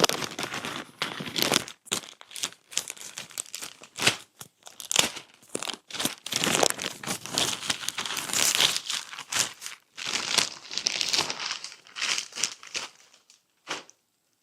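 A mailing package being torn open and unwrapped by hand: irregular crinkling and tearing of packaging that stops about a second before the end.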